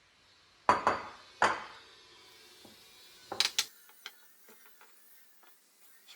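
Sharp knocks of a kitchen utensil against a dish: three close together about a second in, two more a little past three seconds, then a few light taps.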